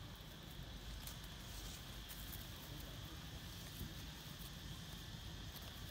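Quiet outdoor ambience: a steady high hum, with faint scattered clicks and rustles of dry leaves as long-tailed macaques move about on the leaf litter.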